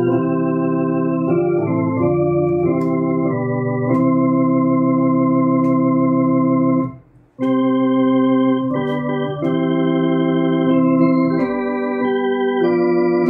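Electronic organ playing a hymn's chords in sustained, held notes that change every second or so. The sound breaks off briefly about seven seconds in and then resumes.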